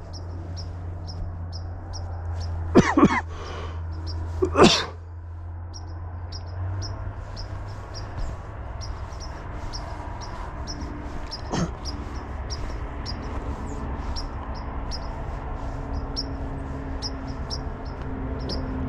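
Small birds roosting in pine trees, giving a steady high chirp about three times a second. Two short loud calls come about three and four and a half seconds in, and another near twelve seconds, over a low hum that fades about seven seconds in.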